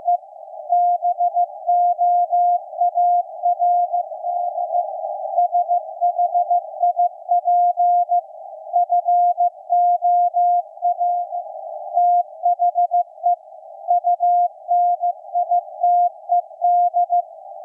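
Morse code from the maritime coast station KPH received on shortwave in CW mode: a single steady beep tone keyed on and off in quick dots and dashes over a narrow band of receiver hiss.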